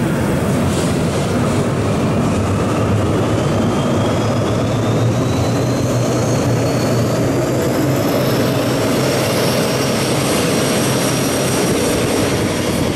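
Passenger train rolling past as it pulls out, with the trailing V 180 twin-engine diesel-hydraulic locomotive coming close, its engines running with a low hum and a high whine that rises steadily in pitch as the train gathers speed.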